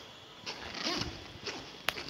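Quiet footsteps and the rustle of a hand-held camera being carried, with one sharp click just before the end.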